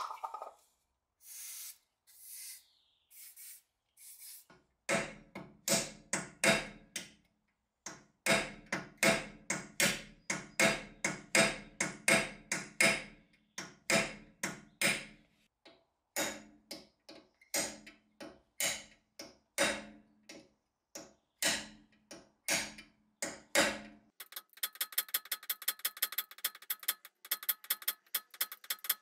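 Hammer driving a punch against a seized steel pin in an aluminium Brembo six-piston brake caliper. Sharp metallic blows with a ringing tone come in irregular runs from about five seconds in, and near the end they turn into a fast run of lighter, quicker taps.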